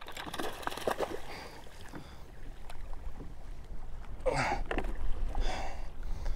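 Water sloshing around a kayak with wind rumbling on the microphone, and a few small clicks and knocks in the first second. About four and five and a half seconds in, the angler gives two short breathy groans.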